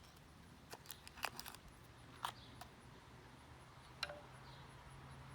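A few faint clicks and light taps from hands handling jute twine and a knife, over a steady low hum.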